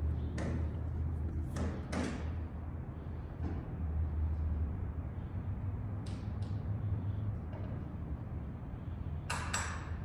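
Construction and remodeling work banging: irregular sharp knocks and thuds, several single hits spread out and a quick cluster of louder ones near the end, over a steady low hum.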